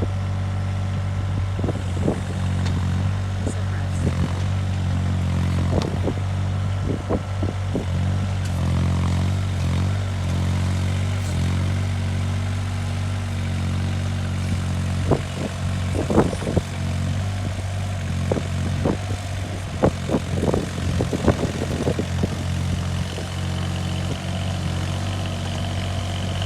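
An engine running steadily at a constant speed, with scattered short knocks and clanks that come more often in the second half.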